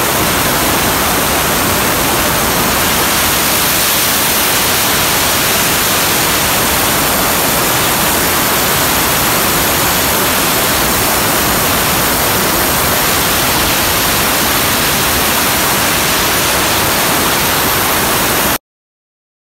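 Electric arc welding: the welding arc gives a loud, steady hiss that cuts off suddenly near the end.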